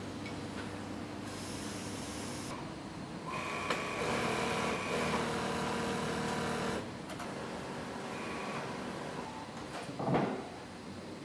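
Industrial sewing machines running with a steady hum. A stronger, even whine sounds from about three to seven seconds in, and a brief whoosh comes about ten seconds in.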